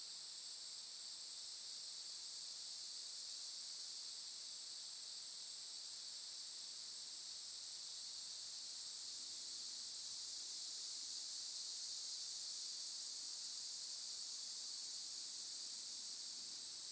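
Steady high-pitched chorus of insects, unbroken throughout.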